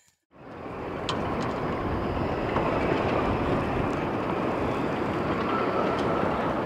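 Strong wind buffeting the microphone outdoors: a steady, heavy rushing noise that fades in over the first second, with a few faint ticks.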